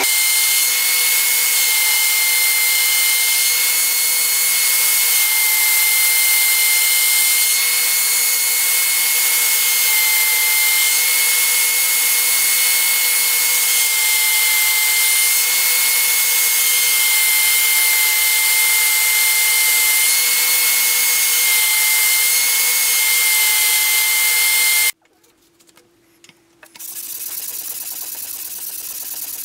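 Small bench belt sander running with a steady high whine while the steel blade of a cleaver is ground against the belt. It cuts off suddenly about 25 seconds in. After a brief near-silence, a sanding disc is rubbed by hand over the steel blade near the end.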